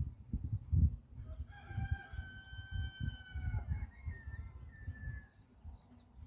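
A rooster crowing once: one long drawn-out call that falls away near the end, over low thumps and rumble.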